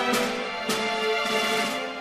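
Instrumental background music of held pitched notes, with a new note coming in a little before the middle.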